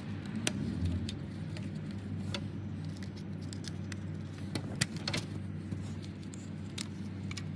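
Glow plug electrical connectors being pulled off their plugs by hand. There is a handful of sharp plastic clicks and small rattles, the loudest a little before the five-second mark, over a steady low hum.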